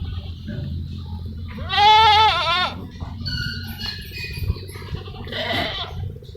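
A goat bleating: one loud, wavering call about a second long, with fainter calls later.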